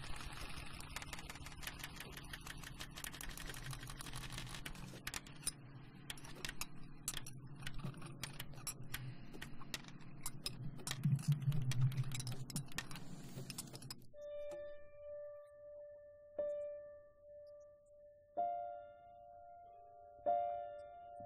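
A dense clatter of many small clicks over a low hum, which cuts off abruptly about two-thirds of the way through. Then a piano plays sparse single notes, one note struck about every two seconds and left to ring, with a higher note joining it on the last two strikes.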